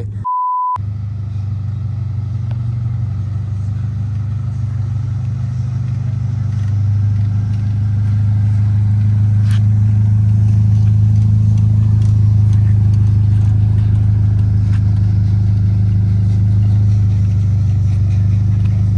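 A short steady beep near the start, then a Honda Civic sedan's engine running with a low steady exhaust drone through an aftermarket exhaust. The drone gets louder about seven seconds in.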